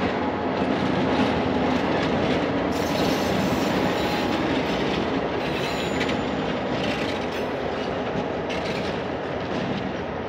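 A pair of CSX diesel locomotives rolling past close by: engines running and steel wheels on the rails, easing off slowly as they move away.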